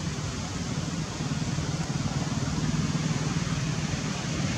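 Steady rushing background noise with a low hum underneath.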